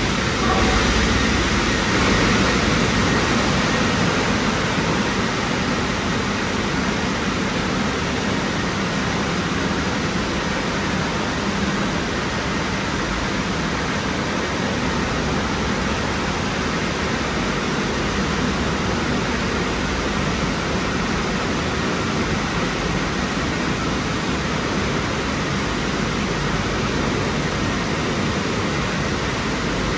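Drying blowers of a 2003 WashTec SoftCare Pro rollover car wash running in the drying stage, a steady rush of air that holds level throughout.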